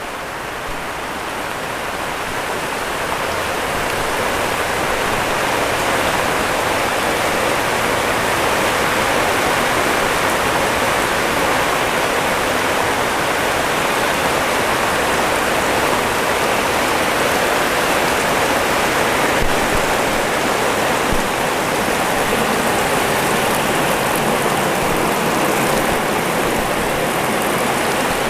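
Heavy rain falling steadily, a dense even hiss that builds over the first few seconds and then holds.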